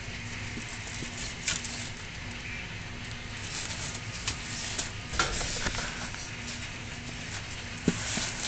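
Scattered soft rustles and clicks as a lop-eared rabbit noses and forages through hay, over a steady low hum; the clicks bunch up about five seconds in and again near the end, as the rabbit comes right up to the camera.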